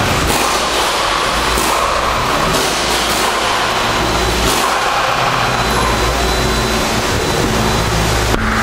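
Steady, loud auto-repair-shop background noise: a constant rushing hum with a few faint clicks and no clear single machine standing out.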